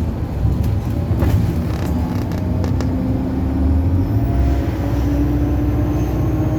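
Bus SK14 CUG heard from on board: the engine running with a low rumble and a steady drivetrain whine, plus a few short rattles and clicks. A faint high whine rises about four seconds in.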